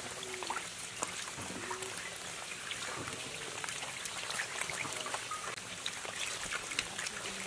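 Live climbing perch crowded in a shallow tub of water, wriggling and flapping against each other, making many small irregular wet slaps, splashes and drips.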